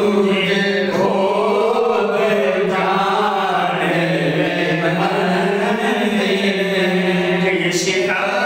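A man's solo voice reciting a naat, Urdu devotional poetry in praise of the Prophet, sung slowly with long held notes that slide up and down in pitch, with no instruments.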